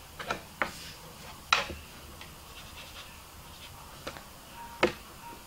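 A few short, quiet clicks and taps at irregular spacing as a thin paintbrush is worked in the pans of a plastic watercolour paint box, loading dark paint.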